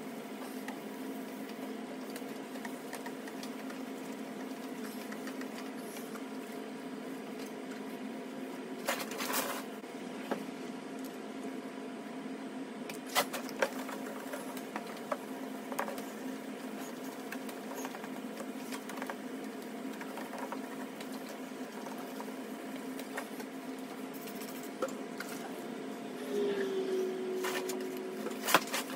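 A small electric orbital sander running steadily as it wet-sands a plastic light-bar dome, giving a constant buzzing hum, with a few sharp knocks along the way.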